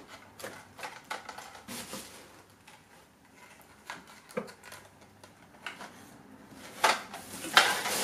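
Plastic packaging bags crinkling and rustling while small plastic vacuum-cleaner parts are handled and lifted out of a cardboard box, with light clicks and knocks. The crinkling is loudest near the end.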